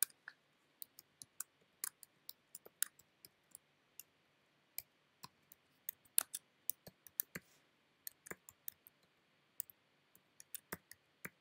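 Typing on a computer keyboard: irregular key clicks in short runs with brief pauses, fairly faint.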